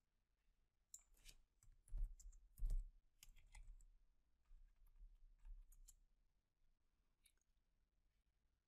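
Faint computer keyboard keystrokes and mouse clicks, a scattered handful of short clicks, most of them in the first six seconds.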